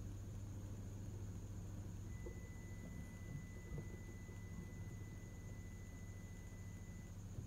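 Low steady hum with faint hiss. A thin, steady high tone comes in about two seconds in and stops shortly before the end, and there are a few faint taps near the middle.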